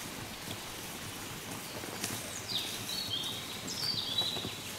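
A songbird singing over a quiet outdoor background hiss. About two seconds in it starts a few high, bright phrases of stepped notes that fall in pitch, and it repeats them near the end.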